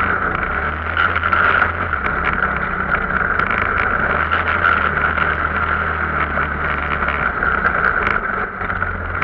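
Arctic Cat vehicle's engine running steadily while under way, with a steady drone and many small knocks and rattles.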